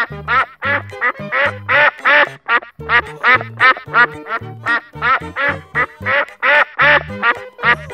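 Cartoon duck quacking over and over, about three quacks a second, over background music with a repeating bass line.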